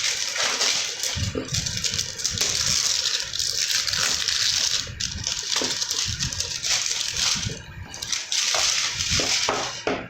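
Plastic packaging crinkling and rustling as a parcel is handled and torn open, with many quick crackles.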